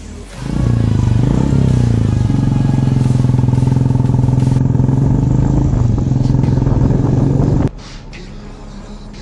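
Royal Enfield Bullet 350's single-cylinder engine pulling away under way. Its revs rise and fall once in the first two seconds, then it runs at a steady pitch until it cuts off suddenly near the end, leaving faint background music.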